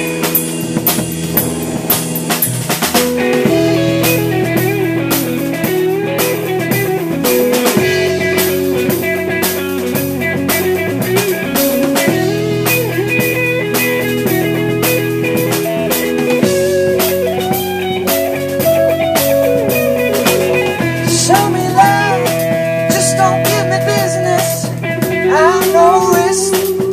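Live band playing an instrumental passage: drum kit, electric guitar and keyboard over sustained chords that change every few seconds.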